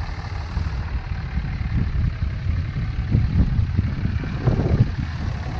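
Ram pickup truck with a welding-rig bed, towing a trailer, driving slowly past at close range: a steady, low engine rumble.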